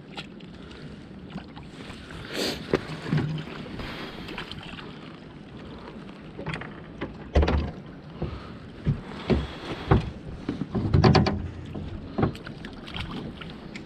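Scattered knocks and clunks of gear being handled in a fishing boat, with a low thump about seven seconds in and a quick run of knocks about eleven seconds in, over steady wind noise on the microphone.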